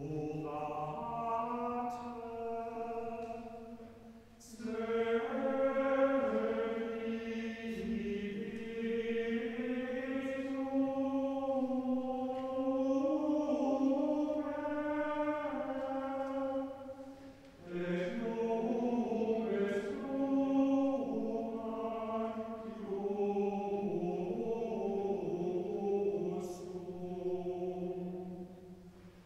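A choir singing a slow chant in sustained notes, in long phrases with two short breaks between them.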